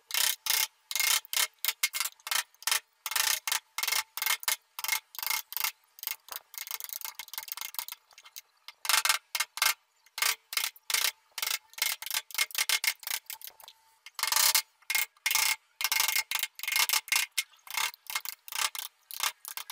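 Steel wood chisel pushed by hand through a clamped block of wood, paring out a curved recess: a rapid run of short, crisp scraping cuts, several a second, broken by a couple of brief pauses.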